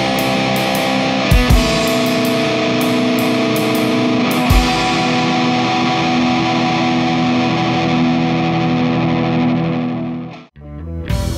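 Rock background music with distorted electric guitar playing long held chords that change twice. Near the end it cuts out for a split second before starting again.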